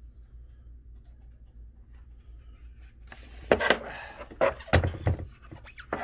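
Handling noise from a plastic document camera: a run of knocks, clicks and rubbing that starts about halfway through, over a low steady hum.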